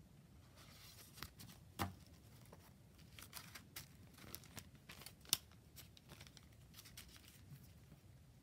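Paper cards and stationery being handled: soft rustling and light taps and clicks, the sharpest about two seconds and five seconds in.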